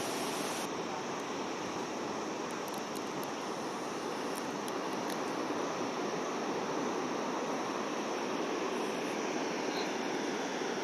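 Large waterfall, water crashing down in a steady, even rush of noise.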